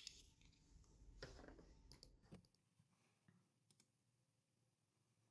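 Near silence: faint room tone with a sharp click at the start and a few faint clicks, then dead silence from about halfway through.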